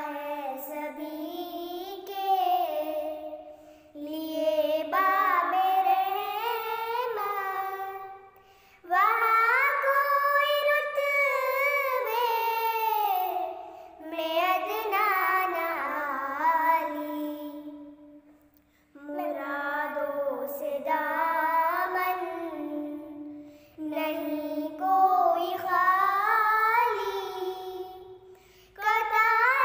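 Two young girls singing a naat, a devotional song in praise of the Prophet Muhammad, unaccompanied. The melody comes in phrases of about four to five seconds, with short breaks for breath between.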